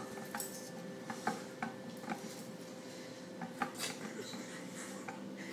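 Quiet room with a steady electrical hum, broken by a few faint, sharp clicks and small rubbing sounds scattered through it.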